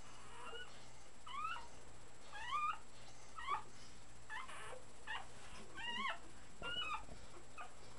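Three-week-old puppies squeaking and whimpering while they nurse: a string of short, high, rising-and-falling squeals, roughly one or two a second.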